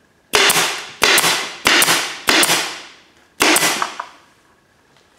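Pneumatic air stapler firing T-50 9/16-inch staples through carpet into plywood: five sharp shots, four in quick succession about two-thirds of a second apart, then a fifth about a second later, each fading out over roughly half a second.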